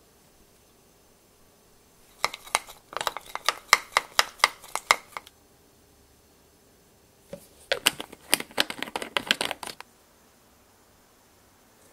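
Metal teaspoon clinking quickly against a small glass bowl as ketchup and hot sauce are mixed, in two bursts of rapid strikes with a short pause between.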